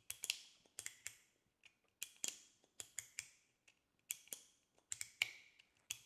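Glow-in-the-dark plastic Nayici Luminous Musketeer slider fidget toy pushed back and forth through its four click stages: repeated sharp clicks, often two or three in quick succession, each with a brief ringing tail.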